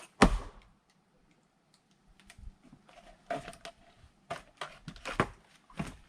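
A single hard axe blow into a log just after the start, then a scatter of light, irregular wooden knocks and clatters as split firewood pieces are handled.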